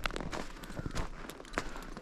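Footsteps of a person walking in snow, crunching at a steady pace of about two steps a second.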